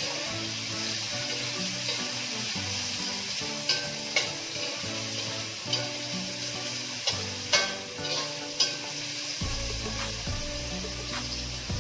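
Ginger, onion and garlic sizzling in hot oil in a metal wok, stirred with a spatula that clicks and scrapes against the pan every second or so.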